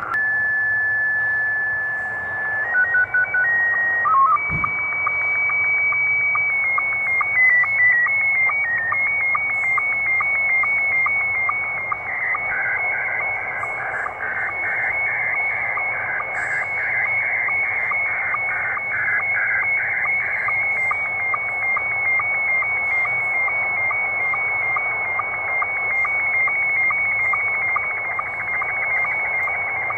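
Slow-scan television (SSTV) picture signal received on shortwave in upper sideband, over radio hiss. A few seconds of steady header beeps lead into a regular ticking sync pulse under warbling, shifting tones as the picture lines are sent. The receiver's noise reduction and noise blanker are switched on, which spoiled decoding of the picture.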